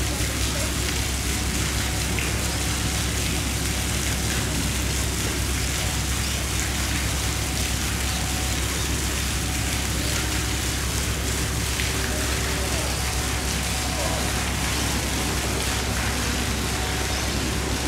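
Steady rushing water with no breaks, with faint distant voices now and then.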